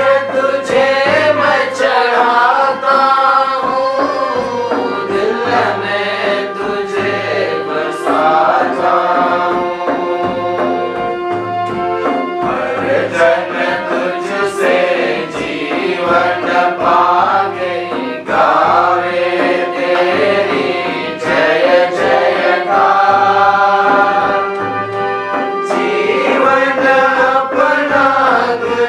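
Offertory hymn: singing with instrumental accompaniment and a regular low beat.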